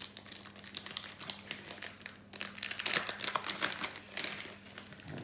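Plastic packet of dried basil crinkling as it is opened and handled, with irregular crackles, loudest about three seconds in.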